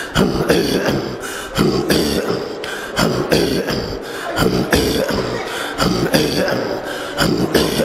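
A group of men chanting dhikr in unison: rhythmic, breathy throat-chanting of a repeated syllable in a steady pulse, without melody.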